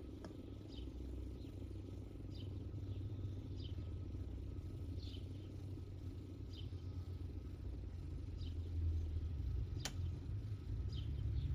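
Outdoor ambience: a steady low rumble with short, high, falling chirps about once a second, and one sharp click near the end. The siren is not sounding.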